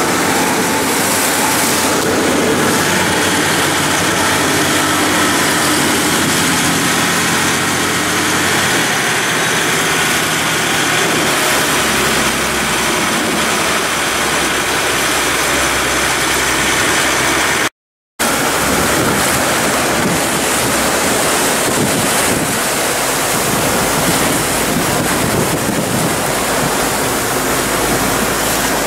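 Boat engine running steadily under way, with the rush of water along the hull; the engine note shifts a couple of times. The sound cuts out completely for a moment about eighteen seconds in.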